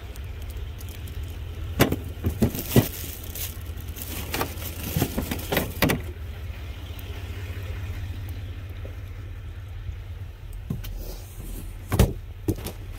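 Scattered knocks, bumps and clatters from handling cardboard boxes and rubbish in a dumpster, over a steady low hum.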